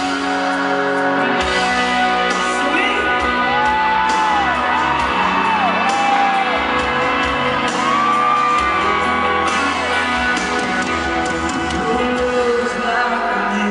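Live country-rock band playing at full volume, with long, bending melody notes over the band and whoops from the crowd.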